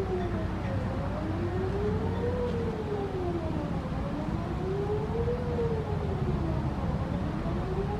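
Distant Whelen WPS-4008 electronic outdoor warning siren sounding its Best Possible Protection tone: a slow wail that rises and falls about every three seconds.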